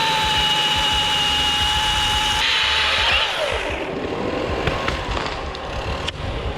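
Milwaukee battery-powered electric chainsaw running at full speed through a cut, with a steady high whine. It winds down about three seconds in. A few light knocks follow.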